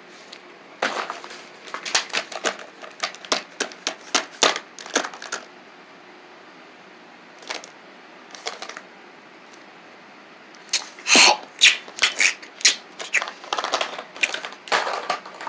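Irregular clicks, taps and rattles of plastic toys being handled and set down on carpet. They come in two spells: one starting about a second in, and a denser one from about eleven seconds.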